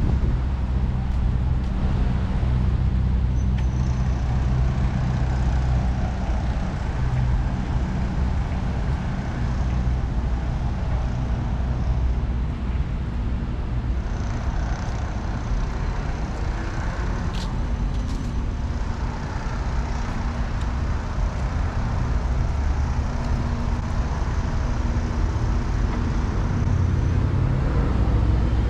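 Road traffic: a steady low rumble of buses and cars running and idling, with a faint hiss now and then.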